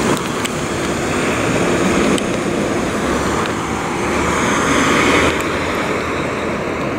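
City street traffic noise: a steady rumble of vehicles passing on the road.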